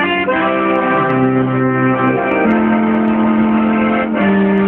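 Accordion playing together with trombones and a trumpet, the parts in harmony, each chord held for a second or two before moving to the next.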